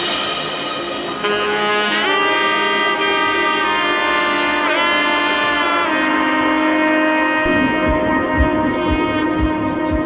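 Background music: long held melody notes that slide in pitch, with a steady beat coming in about seven and a half seconds in.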